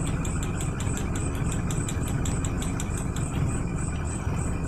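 Suzuki Carry's four-cylinder engine idling with one spark plug lead pulled off the distributor cap, so that cylinder is not firing. The revs drop when the lead comes off, a sign that this cylinder's spark plug is still good.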